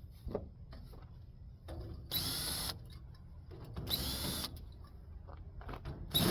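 Power drill/driver running in three short bursts of about half a second each, backing screws out of an air conditioner's sheet-metal casing.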